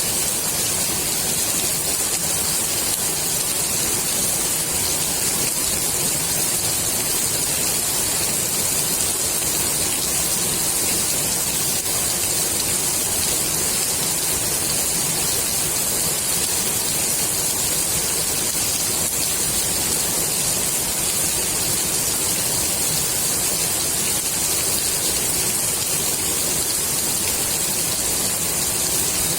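Steady rain falling on the water of a swimming pool, a dense, even hiss of drops with no breaks.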